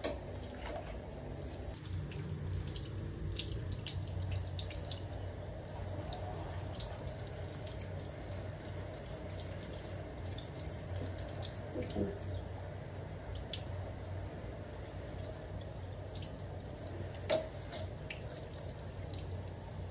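Handheld shower head spraying a steady stream of water, splashing and dripping onto a baby monkey and a plastic stool in a small tiled bathroom.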